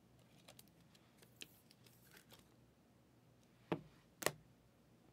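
Trading cards being handled, with a few faint sharp taps and clicks over a near-silent background; the two loudest come close together about four seconds in.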